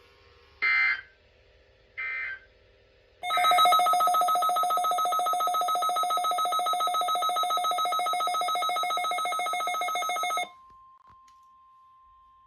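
Two short electronic bursts, then a weather alert radio's alarm: a loud, rapidly pulsing electronic tone, bell-like, lasting about seven seconds, which signals an incoming weather alert. As it stops, a faint steady single tone, the weather radio warning tone, carries on.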